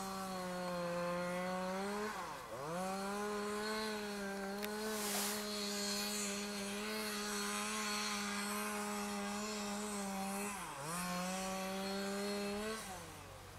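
Two-stroke chainsaw cutting through harbour ice, held at high revs. Its pitch sags briefly twice under load, about two and a half seconds in and near eleven seconds, then it winds down near the end.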